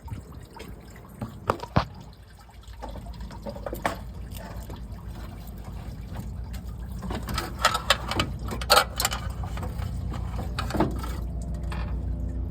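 Old car radiator being pulled out of the engine bay: clunks and knocks as it is worked loose, with leftover coolant trickling and sloshing. The knocks are most frequent about two-thirds of the way through.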